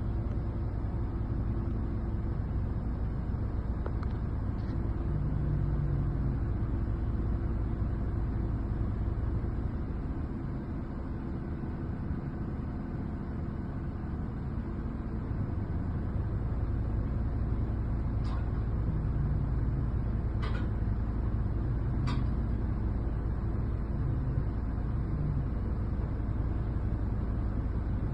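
Diesel engine of heavy machinery running steadily under load. A few faint clicks come about two-thirds of the way through.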